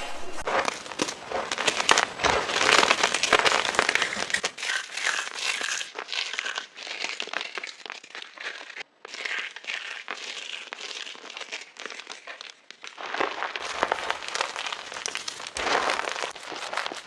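Fresh gym chalk blocks being crushed and crumbled into powder: a dense run of crisp crunches and crackles. From about four seconds in the crackle turns lighter and thinner, with a momentary break near nine seconds, and fuller crunching returns near the end.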